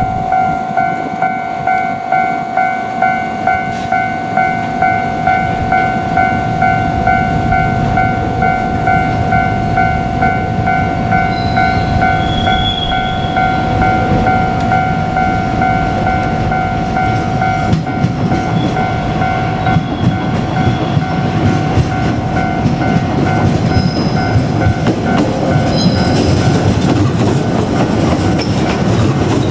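Level-crossing warning bell ringing in a steady pulsing rhythm, then cutting off abruptly about two-thirds of the way through. Under and after it, a JR Kyushu 817 series electric train runs over the crossing with a rumble and wheel clatter on the rails.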